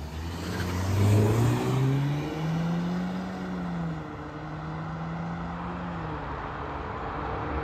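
Petrol Audi's engine pulling hard off a drag-race launch, its note climbing, then dropping at a gearchange about four seconds in and holding steady. The launch bogged in wheelspin.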